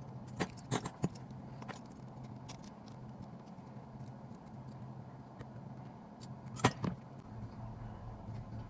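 Light metallic clicks and clinks of tiny screws, nuts and a small tool against a miniature aluminium roof rack during assembly: a handful close together in the first second, then one louder click about two-thirds of the way through. A faint steady low hum runs underneath.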